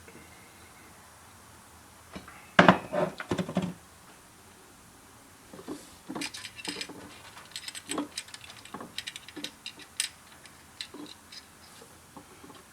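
Metal parts of a 700R4 automatic transmission clinking and knocking as the low support and parking pawl are worked out of the case: a cluster of loud clanks about two and a half seconds in, then lighter, irregular clicks and taps.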